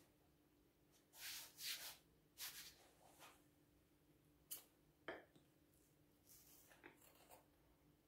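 Faint swishing of hands rubbing wallpaper flat against the wall, a few strokes in the first few seconds, then two short sharp clicks from scissors being handled and a little light scratching.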